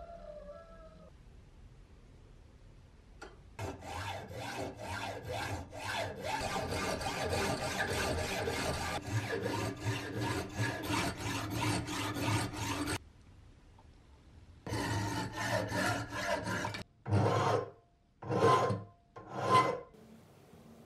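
Hacksaw cutting through a solid bronze tube held in a bench vise: a long run of quick back-and-forth strokes, a short pause, then more strokes. Near the end come three slower, separate strokes, each with a faint metallic ring.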